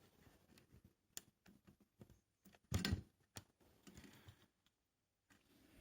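Faint scattered clicks and taps of the TV's plastic case parts and clips being handled and pried apart, with one louder click about three seconds in.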